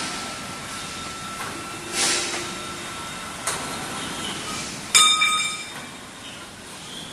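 Bundled galvanized steel pipes clanking as they are pushed into a shipping container off an overhead crane: a few metallic knocks, the loudest about five seconds in and ringing briefly. A faint steady whine runs under the first half.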